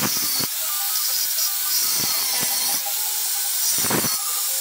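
Hand-held angle grinder with a cut-off disc cutting through steel tube, running steadily under load.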